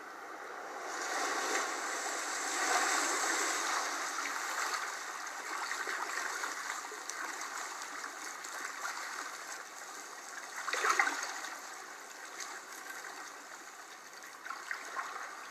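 Rushing, bubbling water from a film's underwater scene, played through a screen's speaker. It swells after about a second and has a brief louder surge around eleven seconds in.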